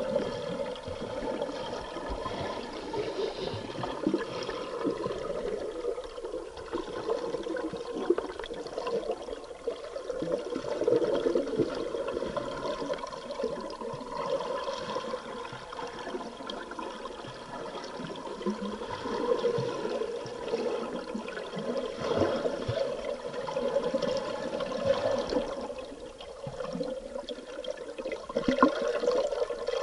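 Muffled bubbling and rushing water noise recorded underwater, swelling and fading every few seconds, from a scuba diver's exhaled bubbles.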